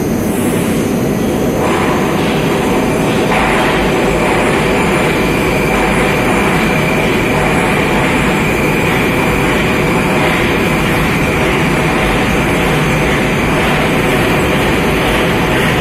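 81-760 Oka metro train pulling out of the station and gathering speed past the platform, its wheels and running gear loud and steady. It grows louder over the first few seconds, and a steady high whine joins in about three seconds in.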